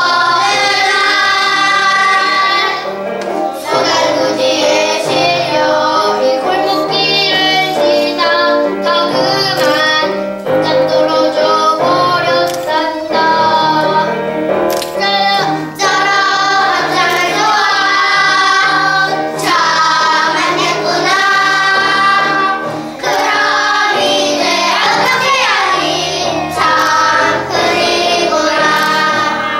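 A group of young children singing a song together in Korean over a piano accompaniment.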